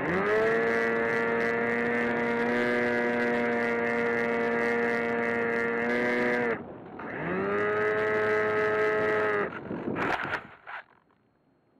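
Onboard sound of the AXN Floater Jet RC plane's electric motor and propeller, spooling up to a steady high whine, cutting about six and a half seconds in, spooling up again and cutting near the ten-second mark. A brief rustle and scrape follows as the plane touches down in grass, then it goes quiet.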